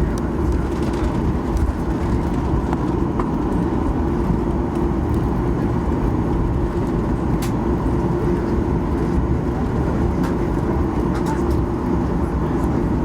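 Steady cabin noise of a Boeing 737-800 with its CFM56-7B engines running: an even rumble and hum with a constant low tone, and a few light clicks and rattles.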